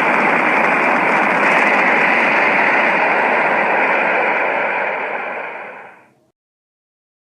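Kaiju monster sound effect: a steady rushing noise, like jet flight or flame breath, that fades out about five to six seconds in.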